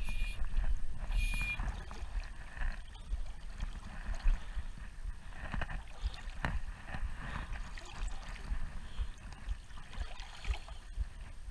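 River water running, with wind buffeting the microphone in a rumble that rises and falls, and a few sharp ticks.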